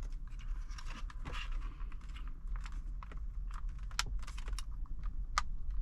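Scattered light clicks and rattles of plastic being worked by hand as a stuck part in the car's dashboard is pulled loose, with two sharper clicks in the second half.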